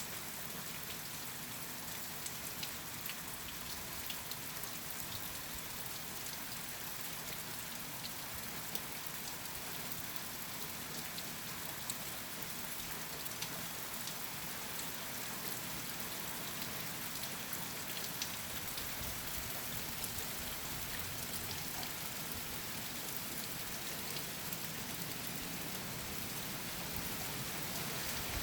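Heavy rain falling steadily in a storm, with a dense patter of individual drops ticking on a hard surface.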